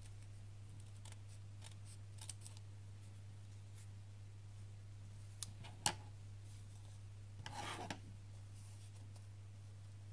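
Scissors trimming the excess fabric from around a hand-embroidered fabric heart: scattered faint snips and clicks, one sharper click a little past the middle and a short rustle of fabric soon after.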